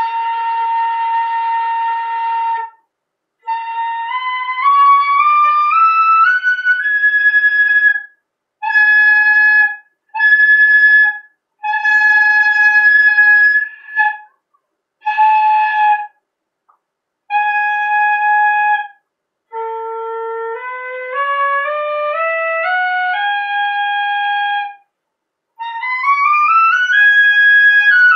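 Shinobue (Japanese bamboo transverse flute) blown at full volume as a loudness exercise: a long held note, then scales climbing step by step and repeated held high notes, with short breaks for breath. Near the end a low-register run climbs stepwise, and the last run rises and then falls back.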